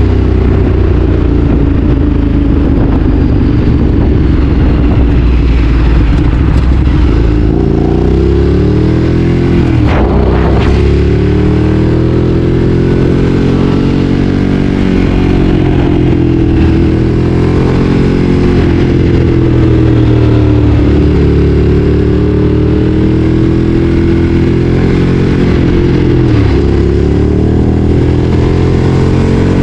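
Ducati Streetfighter 848's 849 cc L-twin engine pulling on the road, its pitch rising and falling with the throttle, with sharp dips in pitch about ten seconds in, around twenty seconds and near the end.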